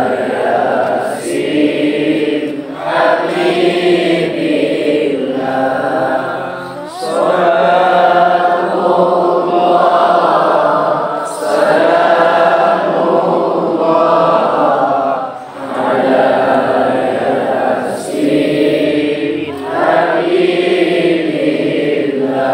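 A group of voices singing together in unison, in sustained phrases a few seconds long with short breaks between them.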